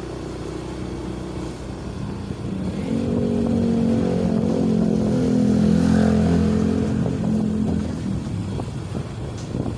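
Motorcycle engine running while riding along a street. It swells louder in the middle and eases off near the end.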